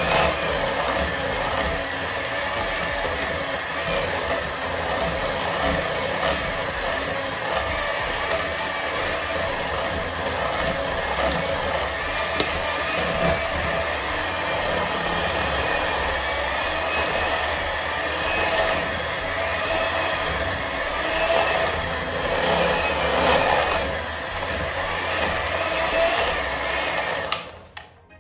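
Electric hand mixer running steadily, its twin beaters whisking batter in a stainless steel bowl. The motor stops near the end.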